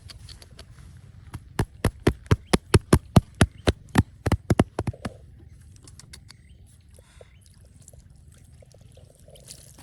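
A rapid series of about fifteen sharp knocks, about five a second, lasting around three and a half seconds, followed by a few faint scattered clicks.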